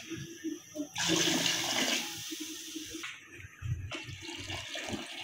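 Water poured in a stream into a metal pot of vegetables and broth, splashing into the liquid, heaviest about a second in. It is the water being added for the pulao rice.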